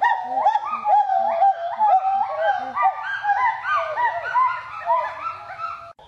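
Many animal calls overlapping, like a flock, each a short call rising and falling in pitch. A lower call repeats about twice a second through the first half. The sound cuts off suddenly just before the end.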